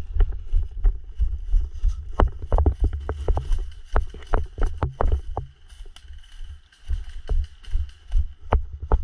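Footsteps of an airsoft player moving on foot, about two heavy thumps a second, with sharp clicks and rustles of brush and gear; the steps ease off for a moment about halfway through, then pick up again.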